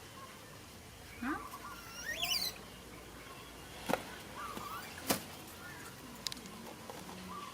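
Pet monkey giving a few short, high-pitched squeaks that swoop up and down in pitch, with two sharp clicks midway.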